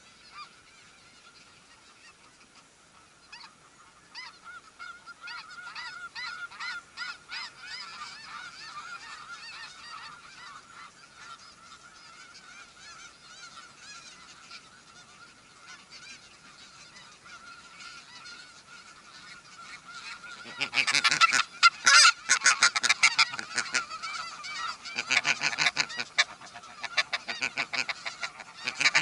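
Snow geese honking, with faint distant calling running throughout. About twenty seconds in comes a burst of loud, rapid honking, with another a few seconds later and more near the end.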